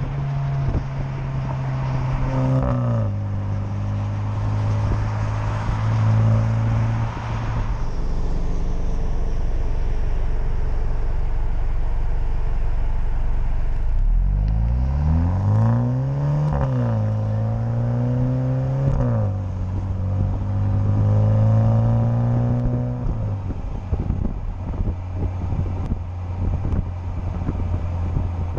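Exhaust of a 2020 MINI JCW Countryman's turbocharged four-cylinder, driving with the automatic in Sport mode and shifting by itself. After a steady stretch and a quiet, low-running lull, the engine pulls hard about halfway through, with a rising note broken by two upshifts, then settles into a steady cruise. Wind buffets the microphone near the end.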